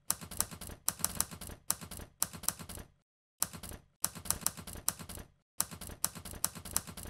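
Typewriter keystroke sound effect: rapid clacking of keys in runs, with short pauses about three seconds in and again about five and a half seconds in, paced with text being typed out on screen.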